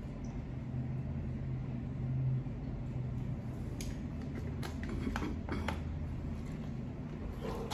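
Plastic water bottle drunk from and handled, with a few short crinkles and clicks from about four to six seconds in. A steady low hum runs underneath throughout.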